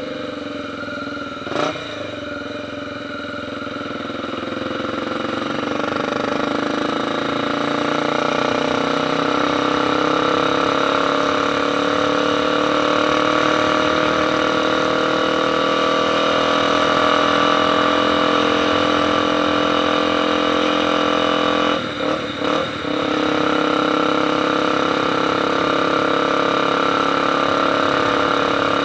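Motorcycle engine running steadily, growing louder over the first several seconds and then holding even, with two brief dips in level about two thirds of the way through. A single sharp click comes about a second and a half in.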